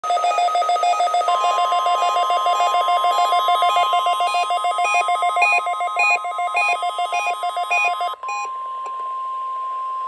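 NOAA weather radio sounding the National Weather Service 1050 Hz warning alarm tone, a steady single pitch, during the required weekly test, mixed with the receivers' own rapid electronic alert beeping. The beeping starts first and stops about eight seconds in, leaving the steady tone alone.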